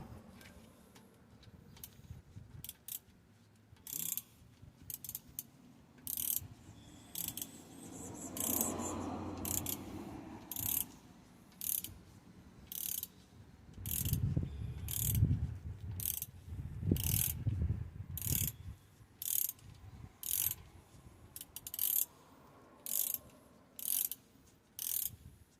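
Socket ratchet wrench clicking in repeated short strokes, roughly one stroke a second, as a brake caliper bolt is being loosened, with a few dull low knocks around the middle.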